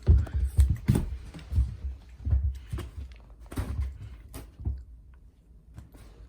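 A cat playing with a ball of yarn: irregular soft thuds and knocks as it pounces and scrambles across the floor, busiest in the first few seconds and thinning out near the end.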